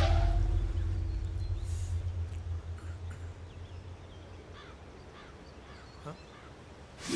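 A deep low rumbling drone that fades away over the first four seconds, leaving faint scattered bird calls.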